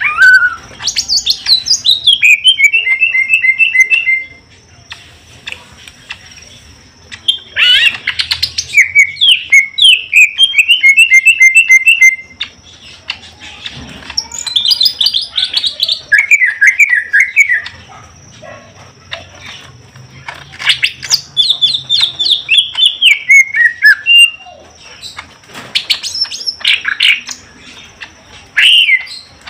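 Caged greater green leafbirds (cucak ijo) singing loudly in about five bouts. Each bout opens with a falling note and runs into a fast string of repeated notes.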